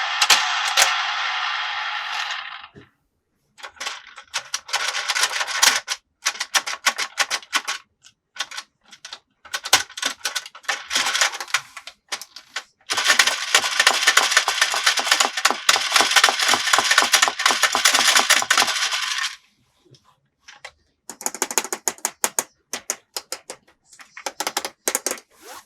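Plastic toy pieces clattering and clicking in rapid bursts of a few seconds each, with short pauses between. The longest burst runs about six seconds near the middle.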